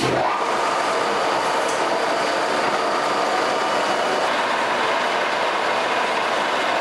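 American Pacemaker engine lathe running steadily with its headstock spindle turning a steel workpiece. The sound starts abruptly and holds at one level, a dense mechanical noise with several steady whining tones from the gearing.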